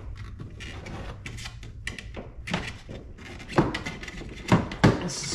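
Hands flexing a plastic wheel-well liner and pushing a carbon fibre fender extender into place in a car's front wheel arch: scattered knocks, clicks and scraping, with a few sharper knocks in the last two seconds.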